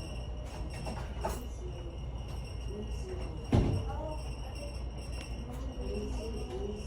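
A steady low hum with a thin high whine under faint, muffled voices in the background, and a single thump about three and a half seconds in.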